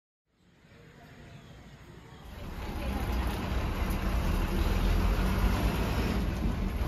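Bus engine and road noise: a low steady rumble with tyre hiss that fades in faintly and grows much louder after about two seconds.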